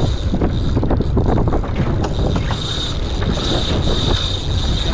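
Wind buffeting the microphone of a camera mounted on a fishing rod, a heavy steady rumble, with irregular clicks and rattles from the spinning reel and rod being worked.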